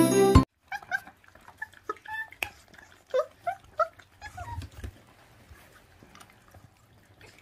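Intro jingle music cutting off about half a second in, then 24-day-old puppies whimpering in a run of short, high squeaks while they tear and chew at raw meat, with small clicks of chewing between the cries.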